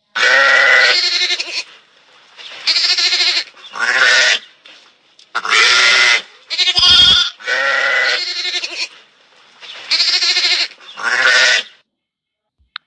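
Sheep bleating, a series of about eight wavering bleats with short pauses between them.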